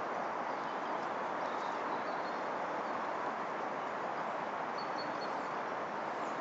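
Steady, even outdoor background noise with a few faint, high bird chirps.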